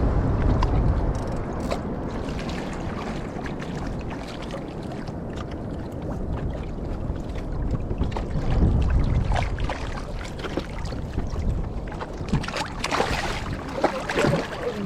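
Wind rumbling on the microphone over water around a small raft at sea, with a few short sharp sounds near the end.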